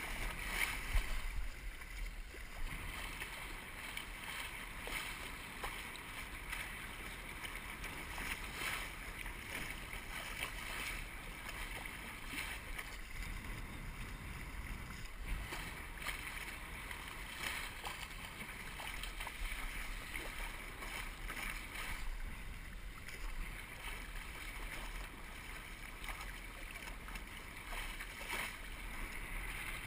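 Steady rush of water and spray along a Musto Skiff's hull as it sails, with wind buffeting the microphone as a low rumble underneath.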